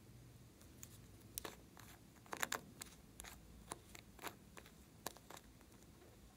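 Faint, scattered plastic clicks and taps as a small Hello Kitty-topped makeup bottle is handled and its cap is twisted open. There are about half a dozen separate clicks, the loudest pair about two and a half seconds in.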